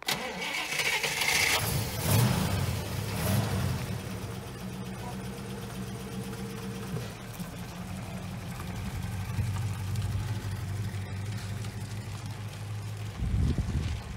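GAZ-24-24 Volga's V8 engine cranked by the starter and catching after about a second and a half, revved sharply twice, then idling steadily. About a second before the end it is revved up again as the car pulls away.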